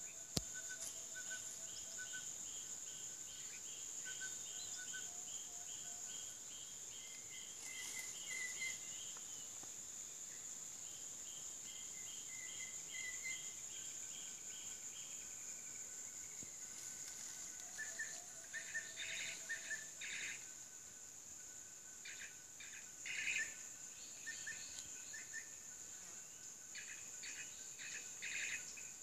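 Steady high-pitched insect drone, with assorted forest bird calls over it: a run of quick repeated notes in the first half, then louder clusters of short calls in the second half.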